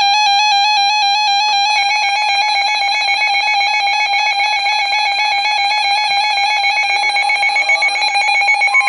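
Weather radio's electronic alert alarm: a shrill, buzzy tone warbling rapidly between two close pitches. Near the end the steady NOAA Weather Radio 1050 Hz warning tone comes in over it.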